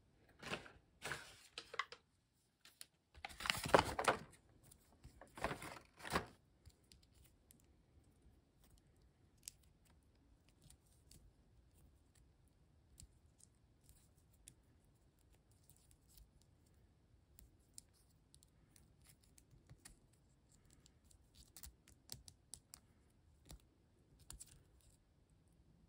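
Small plastic Transformers BotBots toy figure being handled, its parts moved and clicked into place: scattered faint plastic clicks, with a few louder handling knocks and rustles in the first six seconds, the loudest about four seconds in.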